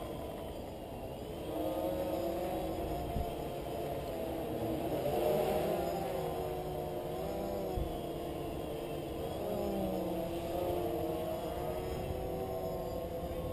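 Multirotor drone's propellers whining, several tones wavering up and down in pitch together as the motors speed up and slow down to hold the craft steady.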